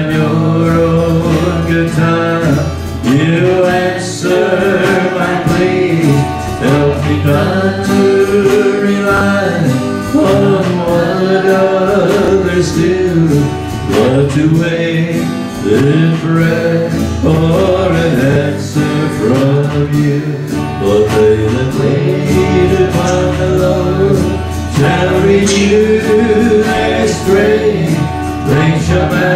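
Live country-gospel song played on two guitars, one acoustic, with singing, running continuously.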